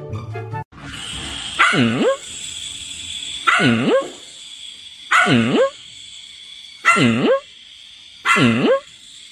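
A dog barking five times, one call every second and a half or so. Each bark dips in pitch and comes back up.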